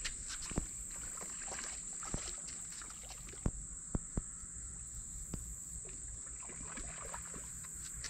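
Insects drone steadily at a high pitch, with a handful of short, sharp clicks scattered through it; the loudest clicks come in a quick cluster about three and a half to four seconds in.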